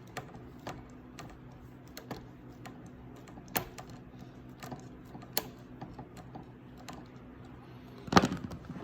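Irregular light plastic clicks and ticks from a strap-type hose clamp being pulled and tightened by hand, with a louder clatter of clicks near the end, over a faint low hum.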